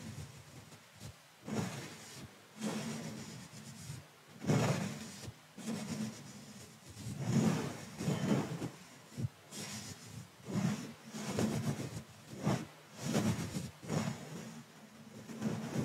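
A soft brush stroked slowly across a microphone's head, close up: a string of gentle swishing strokes, roughly one a second, each a rub of bristles over the mic.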